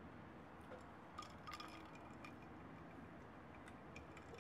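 Faint clinks of ice cubes against a glass of iced milk tea as the glass is lifted from its wooden coaster: a handful of light ringing ticks over quiet room tone.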